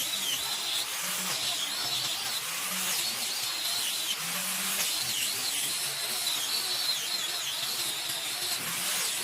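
Small electric power tool running on wood, its high whine wavering up and down with the load.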